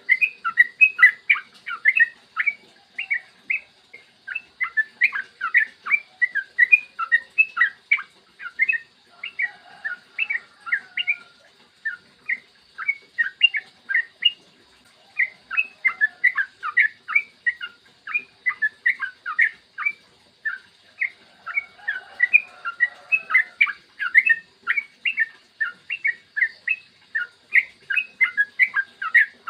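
Yellow-vented bulbul (trucukan) singing a long, fast run of short sliding notes, several a second, broken by a few brief pauses.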